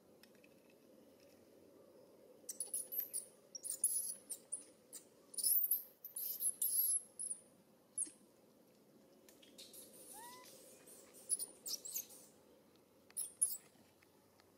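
Clusters of short, very high-pitched animal squeaks and chirps, coming in quick runs with gaps between, and one short lower call that rises and falls about ten seconds in.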